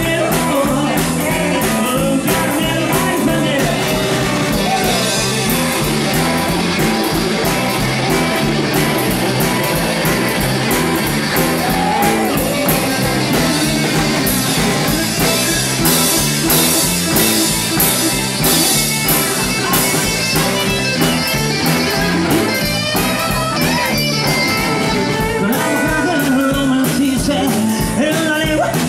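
Live rockabilly band playing: a stand-up drum kit of snare and cymbals keeps a steady beat under electric guitars, with a lead voice singing.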